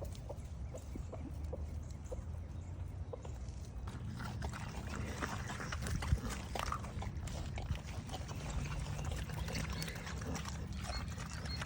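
Farm animals eating kale and blueberries: many small, scattered crunching and clicking sounds of feeding over a steady low rumble.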